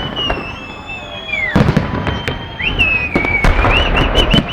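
Fireworks going off: many sharp bangs and crackles, with several high whistles that waver and then fall away.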